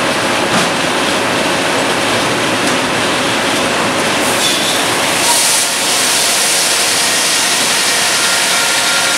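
Sawmill machinery running loudly and steadily: a Cleereman log carriage rolling and rattling along its track, with a brief hiss about five seconds in.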